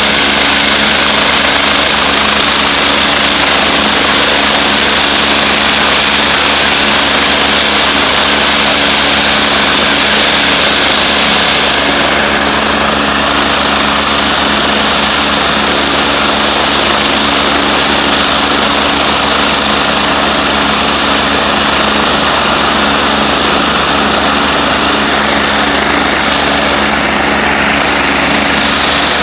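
AgustaWestland AW109SP helicopter running on the pad with its main rotor turning: the loud, steady sound of its twin turboshaft engines and rotor, with a high whine above a steady low drone.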